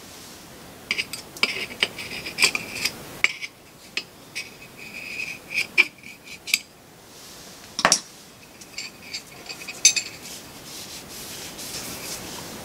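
A small metal pick tool scraping and clicking against a turbocharger cartridge as a sealing ring is worked into its groove: two stretches of thin, high metal-on-metal scraping, scattered light clicks, and one sharp click about eight seconds in.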